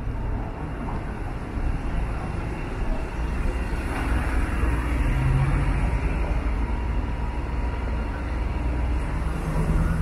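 City street traffic: a steady mix of passing vehicles, with a low engine drone coming through about halfway and again near the end.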